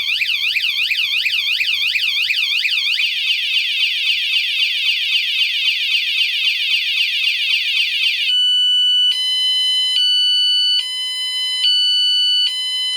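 Noeullim 3.0 Pro bicycle anti-theft alarm, rated 115 dB, going off at full volume after the bike has been bumped a second time. It warbles up and down about three times a second, shifts to a faster warble about three seconds in, then after about eight seconds switches to alternating steady electronic tones. It is really loud.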